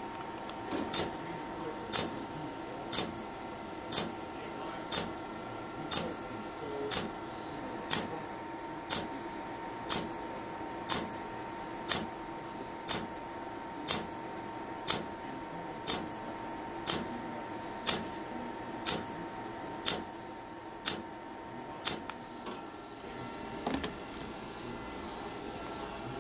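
Candela GentleMax Pro laser handpiece firing pulses, a sharp snap about once a second over a steady high tone from the machine. The pulses stop a few seconds before the end. This is the laser being test-fired after a capacitor board repair.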